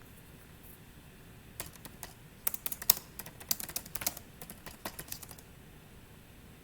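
Typing on a computer keyboard: a quick, uneven run of key clicks starting about a second and a half in and stopping about five and a half seconds in.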